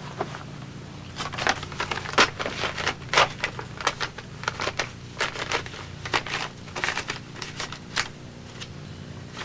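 Paper banknotes crinkling and rustling in short, irregular bursts as they are counted out by hand, over a low steady hum.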